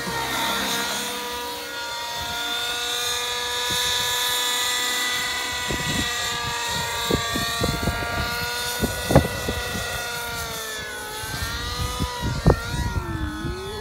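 Radio-controlled model helicopter flying aerobatics: a steady whine from the motor and rotors that sags and climbs back in pitch near the end as the head speed and blade loading change. Some sharp low thumps come in the second half.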